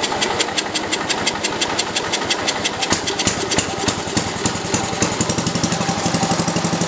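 The single Kohler engine of a George Work Bird zero-turn mower, cold-started on its push-button starter and running with a quick, even beat. It runs only on gas poured into the carburettor, because the fuel pump is not lifting fuel from the tank.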